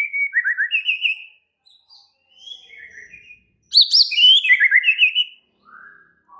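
White-rumped shama (murai batu) singing in short, varied whistled and chirped phrases with brief pauses between them, the loudest run of quick phrases about halfway through. An agitated, aggressive song of the kind played to provoke other shamas into singing.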